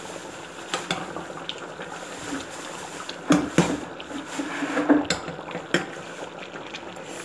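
Metal spoon stirring thick curry sauce in a stainless steel pot, clinking sharply against the pot several times.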